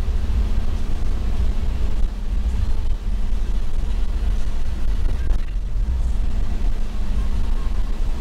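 Cabin noise of a Toyota HiAce Commuter van on the move: a steady low engine and road rumble.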